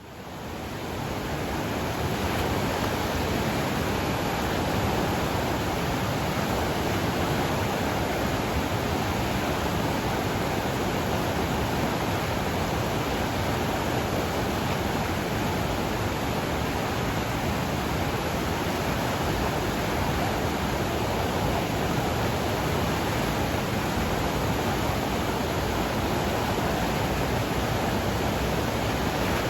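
Mountain river swollen with runoff, its water rushing in a steady, dense unbroken rush. It fades in over the first two seconds, then holds level.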